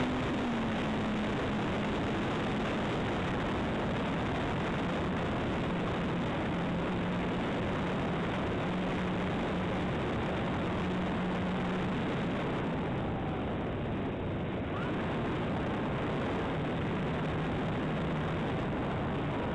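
Radio-controlled Zivko Edge 540 model aerobatic plane in flight, heard from a camera mounted on the plane: a steady rush of propeller and wind noise, with a faint low motor note that wanders in pitch as the throttle changes.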